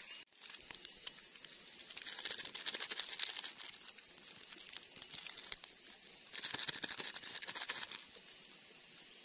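Foil seasoning sachets crinkling as they are torn open and shaken out, in two bursts of crackly rustling a few seconds apart.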